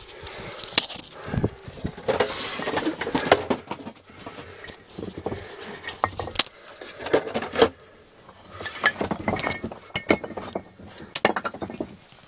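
Loose bricks and brick rubble knocking and clinking as someone clambers over them, in irregular clusters of sharp knocks with scraping and shuffling between.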